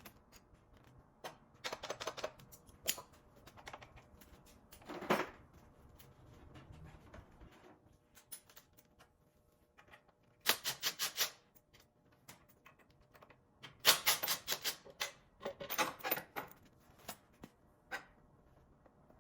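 Ratchet wrench clicking in several short bursts of rapid, even clicks as bolts are worked loose on a motorcycle's primary side, with a single louder metallic click about five seconds in.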